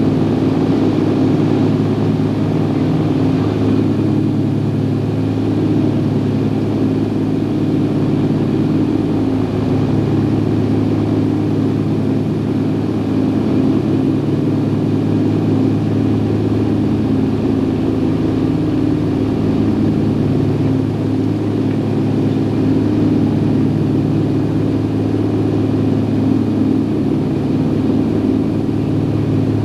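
Lockheed L-1049H Super Constellation's Wright R-3350 radial engines and propellers in cruise, heard from inside the cabin as a loud, steady, deep drone. The lowest part of the drone swells and fades slowly every several seconds.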